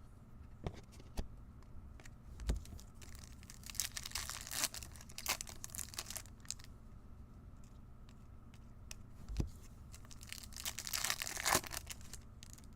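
Trading-card pack wrappers being torn open and crinkled by hand, in two bouts of rustling tearing, with a couple of dull knocks on the table between them.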